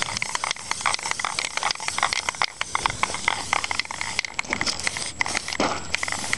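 Aerosol can of spray enamel hissing as paint is sprayed, with many irregular small ticks and crackles over the hiss; the spraying stops near the end.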